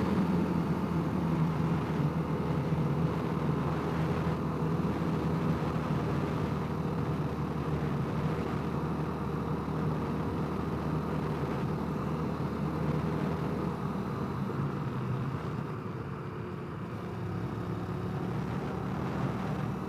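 Honda CRF250L's single-cylinder four-stroke engine running at a steady pace under way, with road and wind noise. The engine eases off briefly about three-quarters of the way through, then picks up again.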